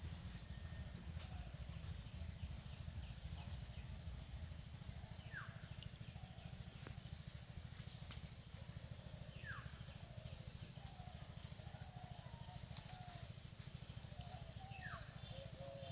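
Birds calling over a steady low rumble: rapid high chirps in the middle, three short falling whistles several seconds apart, and warbling calls toward the end.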